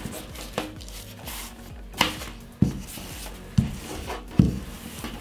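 Wooden rolling pin working a sheet of dough on baking paper over a table: five short wooden knocks as it is set down and lifted, over faint rubbing.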